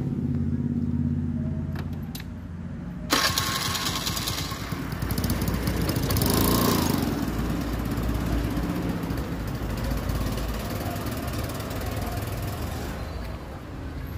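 TVS Scooty Pep scooter engine running after being brought back to life by cleaning its blocked carburettor jets. About three seconds in the sound jumps suddenly louder and noisier, swelling a few seconds later before settling.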